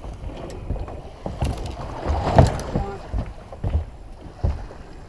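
Irregular knocks and thumps on a small fishing boat, the loudest about halfway through, over a steady low rumble.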